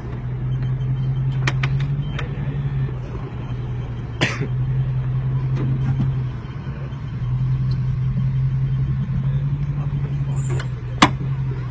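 Lifted Jeep Grand Cherokee WJ's engine running as it crawls over rocks, a steady low drone that eases off and picks up again twice. A few sharp clicks and knocks sound over it, the loudest about four seconds in and another near the end.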